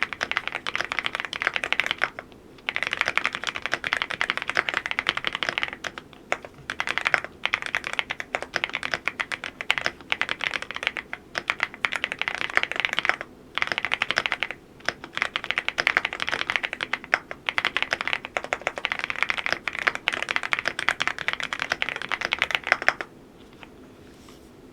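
Typing on a Cidoo V87 Pro full-aluminium mechanical keyboard: fast, continuous keystrokes in runs broken by short pauses, stopping shortly before the end.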